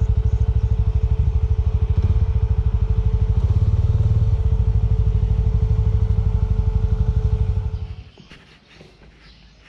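Small Suzuki 250 motorcycle engine running at low speed with a steady, even pulse while the bike rolls slowly along, then stopping abruptly about eight seconds in.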